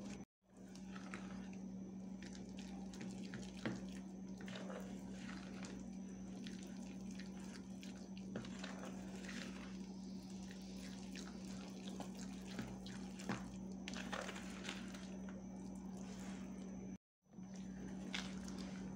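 A spoon stirring and folding thick flour batter in a plastic bowl: soft wet squishing with scattered scrapes and light knocks, over a steady low hum. The sound cuts out briefly twice.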